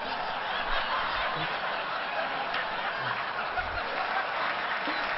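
Studio audience laughing and applauding, a steady wash of crowd noise.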